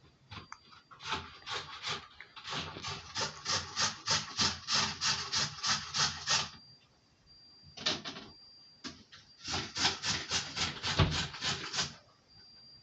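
Fast rhythmic rubbing or scratching strokes close to the microphone, about five a second. They come in two main runs with a pause in between.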